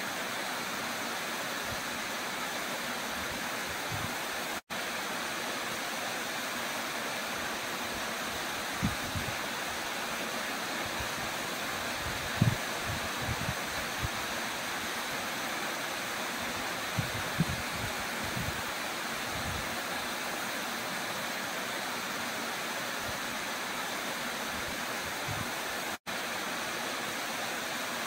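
Waterfall pouring down a rock face into a plunge pool: a steady, even rush of water. A few brief low thumps come around the middle, and the sound cuts out for an instant twice.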